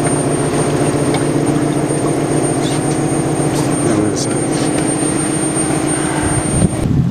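Boat's Honda outboard motor idling with a steady, even drone and a faint high whine above it. The drone breaks off about six seconds in.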